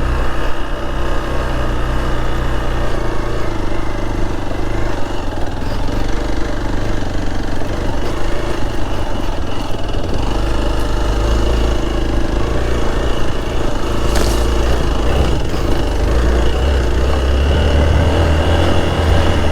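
Hero Xpulse motorcycle's single-cylinder engine running steadily under load as the bike works its way up a steep off-road slope.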